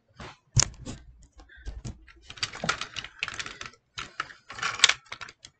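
Plastic parts of a Transformers Optimus Prime action figure clicking and rattling as it is handled and folded between transformation steps. A sharp click about half a second in, then quick irregular runs of small clicks.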